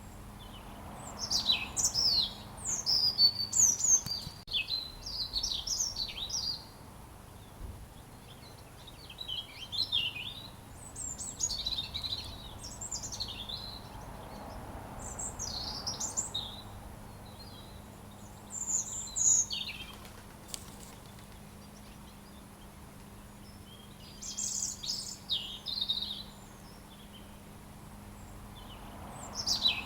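A robin singing: bursts of high, quick, varied twittering phrases lasting one to several seconds, with pauses of a few seconds between them.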